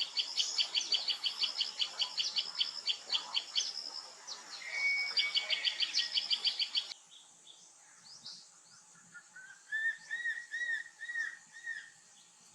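Birdsong: a fast run of high, sharply repeated notes, about six a second. About seven seconds in, the background changes abruptly, and a different bird gives a short series of about half a dozen lower, arched notes.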